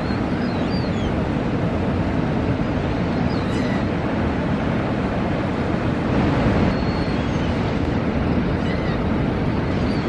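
Surf breaking and washing up the beach in a steady rush, with a few faint, short, high bird chirps now and then.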